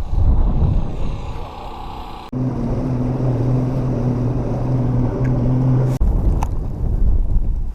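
Wind buffeting the microphone in blowing snow, a heavy low rumble that rises and falls. In a middle stretch, between two abrupt cuts, a steady low motor hum takes over.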